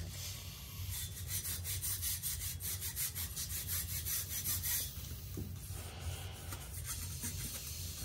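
Air blown by mouth through a steam boiler's pressuretrol pigtail siphon tube, giving a rapid, even rasping for a few seconds and then a softer rushing. It is a check that the pigtail is clear, not plugged.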